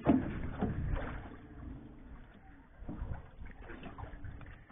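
A few knocks and thumps on a small boat's deck, the loudest right at the start, over a noisy background of water around the hull.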